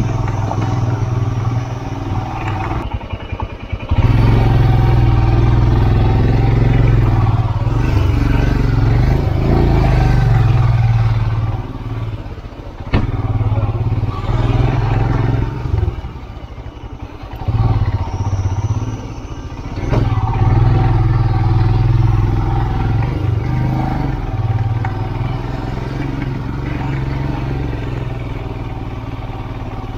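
Motorcycle engine running under load as the bike climbs a very steep road, its note dropping away briefly a few times.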